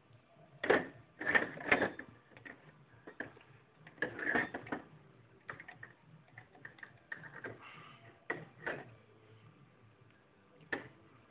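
Small steel hand tools clicking and clinking as a tap is handled and tightened into a T-handle tap wrench. The clicks come in short clusters about a second in, around four seconds in and past eight seconds, with one sharp click near the end.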